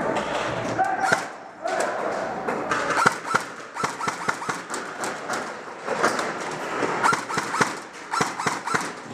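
Airsoft guns firing: many sharp, irregular snaps in quick runs, with voices calling out at a distance.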